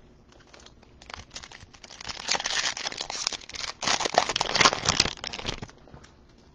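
Foil trading-card pack wrapper being torn open and crinkled, a dense crackling rustle that builds about a second in and dies away near the end.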